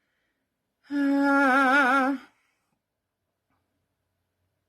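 A woman humming or crooning one held note for about a second and a half, the pitch wavering near its end.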